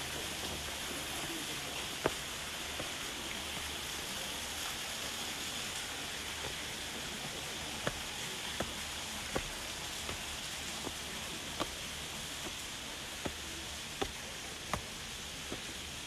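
Steady rushing hiss of Ondaki, the tall falls of Nunobiki Falls, pouring into its plunge pool. Short sharp ticks come every second or two, mostly in the second half.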